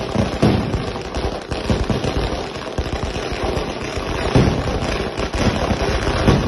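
Fireworks going off in quick succession: a dense crackle of pops and bursts, with a few louder bangs standing out, about half a second in, past the middle, and near the end.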